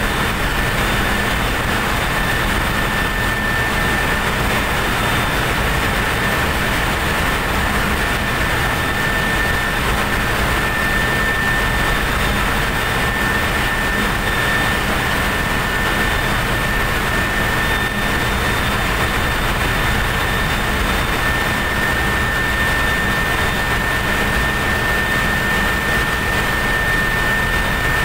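Constant loud machinery drone with a steady high-pitched whine held throughout; any small sounds of hand-assembling the turbocharger are buried under it.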